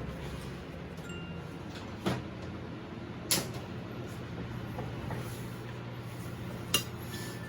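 Tableware clinking on a table: two sharp clinks about a second apart, then a third several seconds later, over a steady low hum.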